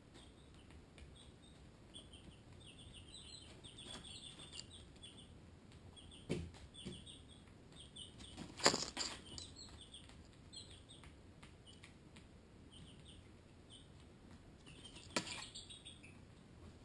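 Barred Rock and Ameraucana chicks peeping: soft, short, high peeps scattered through, with a few brief louder rustles, the loudest about nine seconds in.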